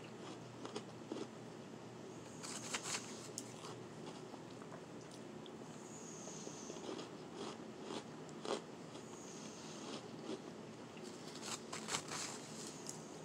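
Close-miked bites and crunches of powdery shaved ice being chewed, with sharp crunchy clusters a few seconds in, briefly midway, and a run of them near the end.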